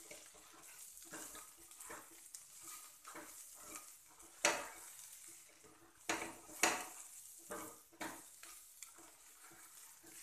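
Spatula stirring and scraping sliced potatoes and onions with spices around a kadhai, with frying sizzle underneath. The scraping comes in irregular strokes, a few of them sharper and louder around the middle.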